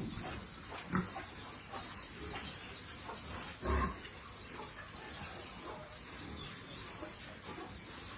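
Pigs grunting, the loudest grunt just under four seconds in, with a short sharp knock about a second in.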